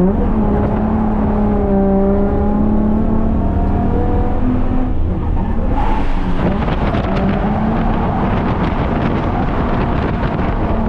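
Holden Commodore's Ecotec V6 held at high revs during a drift, its pitch wavering, dipping about five seconds in and climbing again, with rough tyre hiss joining from about six seconds in.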